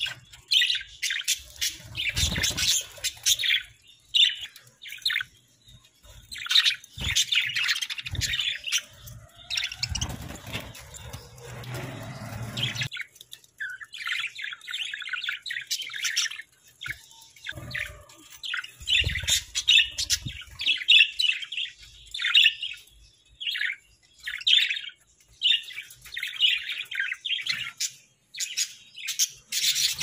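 A flock of budgerigars chirping and chattering in quick, irregular bursts with short pauses between.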